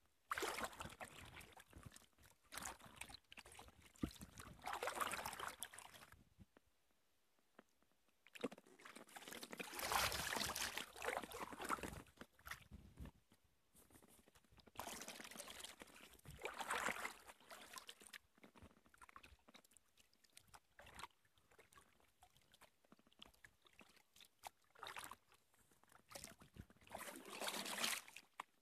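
Kayak paddle dipping and splashing in the water with dripping, in separate bursts a few seconds apart and quiet stretches between.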